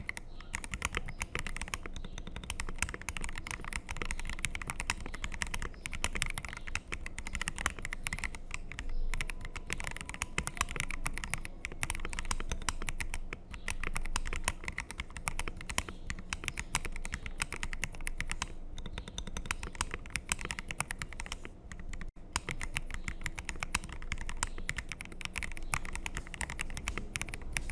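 Continuous fast typing on a custom Akko ACR67 mechanical keyboard fitted with hand-lubed Akko Black linear switches and lubed stabilizers, a dense, unbroken run of key clicks.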